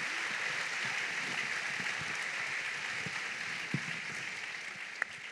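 Audience applause, a steady mass of clapping that thins out and dies away near the end, with a couple of sharp knocks about five seconds in.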